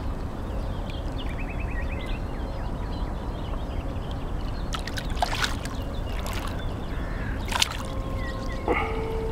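Water sloshing around a large hooked pike as it swims and turns at the surface, with a few sharp splashes midway and near the end, over a steady low rumble.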